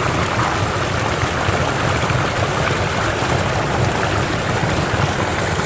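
Small forest stream running, its water rushing steadily without a break.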